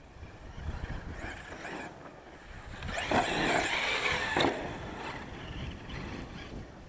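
Losi LST XXL RC monster truck running over dirt, its motor revving up to a loud, high whine that rises and falls in pitch from about three seconds in as the truck launches into a jump, then easing off.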